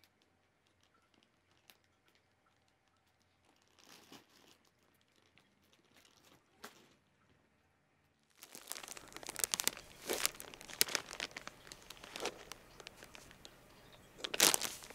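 Clear plastic wrapping on a new cat bed crinkling and rustling in irregular bursts, starting abruptly about eight seconds in after a stretch of faint, near-quiet room sound.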